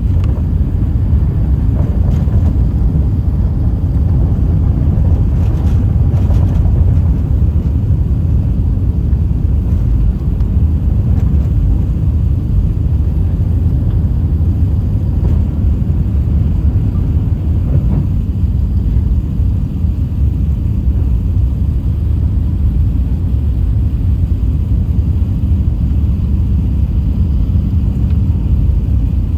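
Airbus A380-800 heard from inside the passenger cabin during takeoff: a loud, steady, low rumble of the engines and the rushing air, with no sudden changes.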